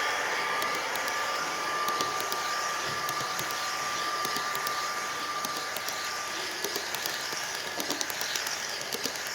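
A model GO Transit MP40PH locomotive pulling a nine-car train around a layout: a steady running whir with a faint constant tone, and light wheel clicks over the track that grow more frequent in the later seconds.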